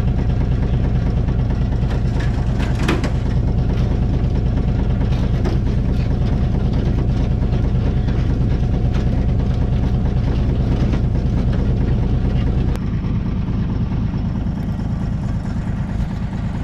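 An engine idling steadily, with a few sharp clanks over it. About three quarters of the way through, the engine note changes and drops a little in level.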